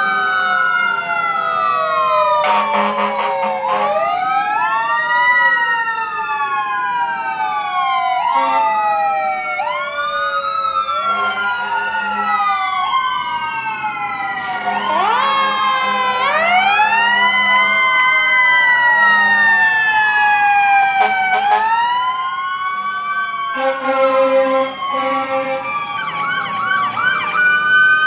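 Several fire-apparatus sirens wail at once, their pitches overlapping as each one rises quickly and falls slowly. Loud horn blasts cut in a few times, the longest about three seconds in and about twenty-four seconds in. A fast warbling yelp comes near the end.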